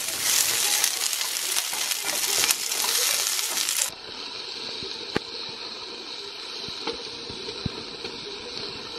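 Asparagus sizzling hard in hot oil in a frying pan as a wooden spatula stirs it. About four seconds in, the sizzle drops to a quieter, steady hiss while sliced mushrooms are stirred in with the asparagus, with a few sharp clicks of the spatula against the pan.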